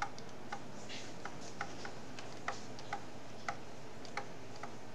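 Light, irregular clicks of a stylus tapping on a tablet screen while handwriting, about two a second, over a faint steady hiss.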